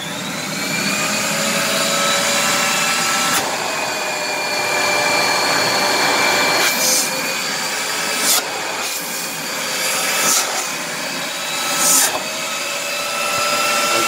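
MD central vacuum cleanout unit, two three-stage 5.7-inch vacuum motors in air series, just started with the motors wired in electrical series for a low-speed soft start: it spins up over the first couple of seconds, then runs steadily with a rushing-air noise and whining tones. A click about three and a half seconds in shifts the pitch of the whine, and four brief louder surges of rushing air follow in the second half.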